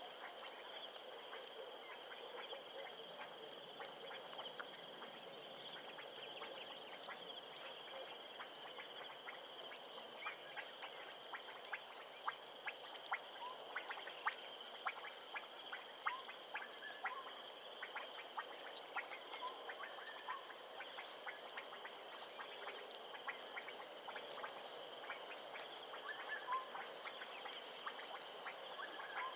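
Frogs and insects calling from a wetland: a steady, high-pitched pulsing trill, with many short sharp clicks and brief calls, most of them about halfway through.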